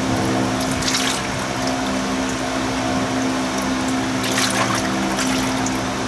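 Used automatic transmission fluid pouring and splashing out of the removed transmission pan into a drain container, with a couple of louder splashes about a second in and again past the middle. A steady hum runs underneath.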